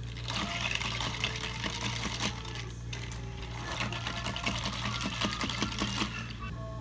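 Ice cubes clinking and rattling rapidly against a plastic cup as an iced chocolate latte is stirred with a straw, with a short pause about halfway and stopping near the end, over a steady low hum.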